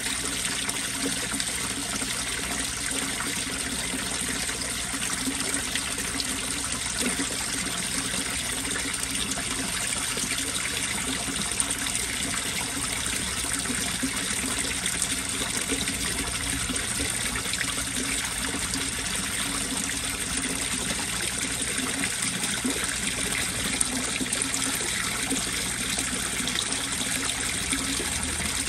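Steady trickling and splashing of running water in a koi pond.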